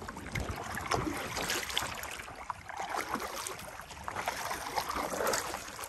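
A paddle dipping and splashing in choppy lake water in repeated strokes from a paddle board, with wind rumbling on the microphone.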